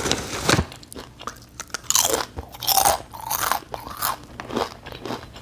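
A person chewing crunchy taco-flavoured snack chips close to the microphone: a run of crisp, irregular crunches.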